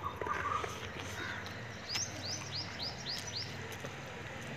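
A bird calling: a quick run of about six high, downward-sweeping chirps lasting about a second and a half, starting about two seconds in.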